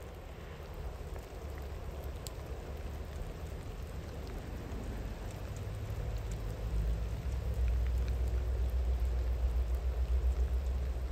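Steady rain falling, with scattered drops ticking close by. Underneath it runs the low rumble of a distant train, which grows louder in the second half.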